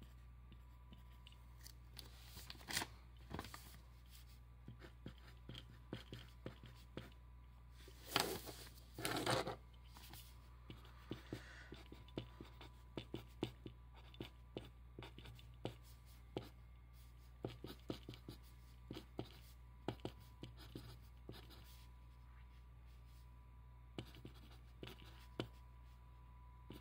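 Pen or pencil writing on paper in short scratchy strokes and ticks. There are two longer, louder rasping strokes about eight and nine seconds in.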